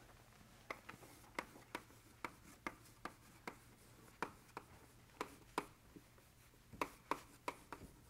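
Faint hand-drawing sounds: a writing instrument making short, irregular strokes and taps, two or three a second, as a diagram is sketched by hand.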